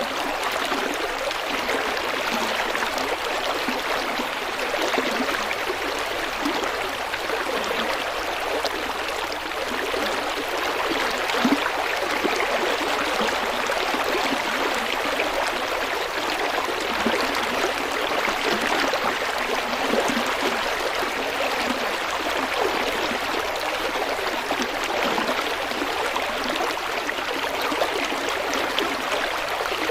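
River water flowing and babbling steadily over rocks, with one brief louder splash about eleven seconds in.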